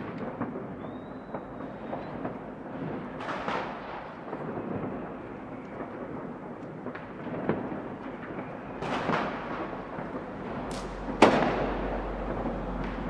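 New Year's Eve fireworks and firecrackers going off all around: a steady rumble and crackle of many distant bangs, with a few sharper, nearer bangs, the loudest about two seconds before the end. A faint short whistle sounds about a second in.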